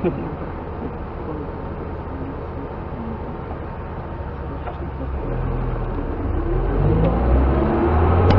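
Car engine idling steadily, heard inside a stopped car, then from about five seconds in a deeper rumble and an engine rising in pitch as traffic pulls away, getting louder toward the end.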